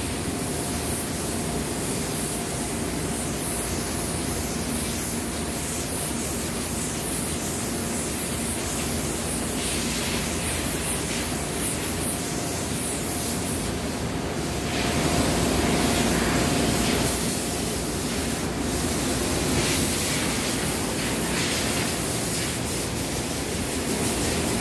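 Compressed-air spray gun hissing steadily as it sprays a dark finish onto furniture, a little louder for a couple of seconds past the middle. A faint steady hum sits underneath.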